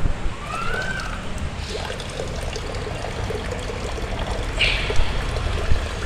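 Used engine coolant draining in a thin stream from a KTM Duke 200's opened drain-bolt hole and trickling steadily into a part-filled steel pot.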